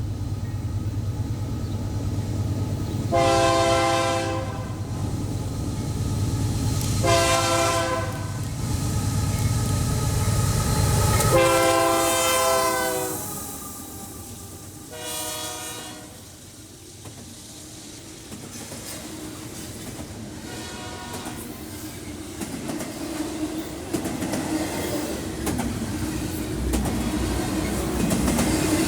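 Train passing with its locomotive's air horn sounding a series of blasts, some long and some short, the third dipping slightly in pitch as the locomotive goes by. A low engine rumble drops away after the locomotive passes, and the wheels of the rail cars clatter and rumble on the track after it.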